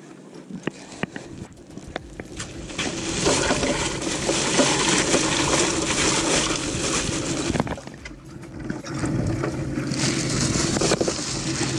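Water rushing and splashing: faint at first, swelling about three seconds in, dropping away briefly near eight seconds, then rising again.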